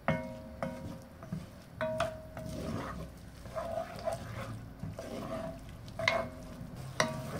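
Wooden spoon stirring diced tomato and onion in a cast iron pot over a low sizzle as white wine reduces. Several knocks of the spoon against the pot, each ringing briefly: twice in the first second, once near two seconds in, and twice near the end.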